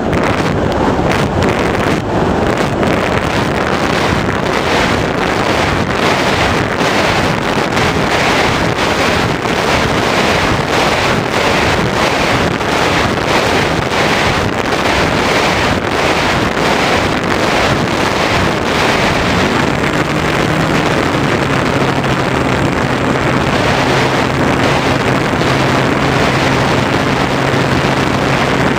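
Airflow rushing over the onboard camera of an Easy Glider Pro electric RC glider in flight, a loud steady rush with a fluttering edge. About twenty seconds in, a steady low drone from the electric motor and propeller joins it and holds.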